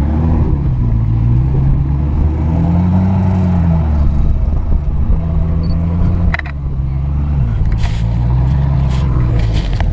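Ferrari F40's twin-turbo V8 running at low revs as the car creeps along, its pitch rising and falling with a light throttle blip about three seconds in. A few sharp clicks come through in the second half.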